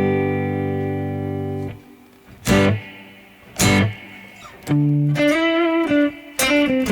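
Telecaster electric guitar played through a Strymon BigSky MX reverb pedal. A held chord cuts off abruptly before two seconds are out. Two sharp hits follow with a wash of reverb after each, then a short run of single notes.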